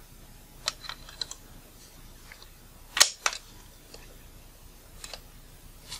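Small sharp clicks and taps of a metal pick working the plastic rear barrel of a Nikon Nikkor 24-85mm VR lens while a small hook is bent to lock an element in place. A few light clicks come in the first second or so, the loudest pair about three seconds in, and one faint click later.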